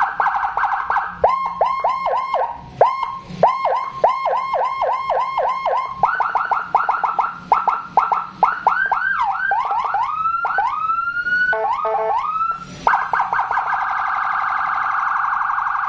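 Custom 100-watt police-escort electronic siren with Whelen 295SL-style tones, played through a 100-watt speaker and cycling through its tones. It runs rapid falling chirps about three a second, then sweeping wails and slower rising sweeps, and after a short break about three-quarters through, a very fast steady warble.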